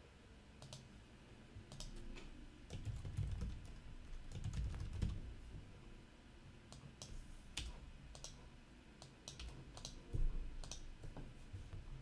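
Computer keyboard typing and mouse clicks: faint, irregular keystrokes, with a few soft low thumps among them.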